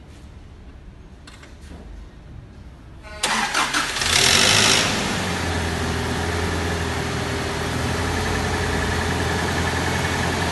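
Toyota 2TR-FE 2.7-litre four-cylinder petrol engine cold-started: brief cranking about three seconds in, catching with a loud flare of revs, then settling to a steady idle. The start carries a rattling, tapping noise from the front of the engine, the sign of a slack timing chain from a failing chain tensioner.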